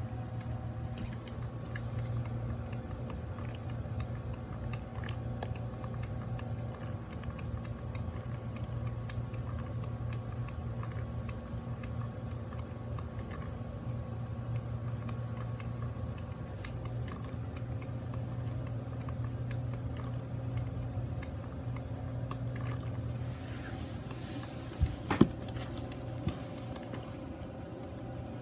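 Mr. Coffee BL5 4-cup drip coffee maker running: a steady low hum with many small ticks throughout, a short burst of hiss and a couple of sharp clicks near the end.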